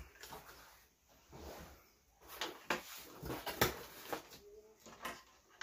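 Cardboard shipping box being opened by hand: the flaps pulled back and the packing inside rustled and shifted, with several sharp clicks and taps about two and a half to four seconds in.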